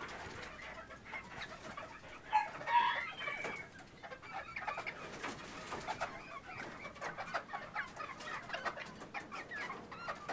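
Chickens clucking and calling as they are caught and handled, with a brief louder outburst between two and three seconds in. Scattered clicks and rustles run under the calls.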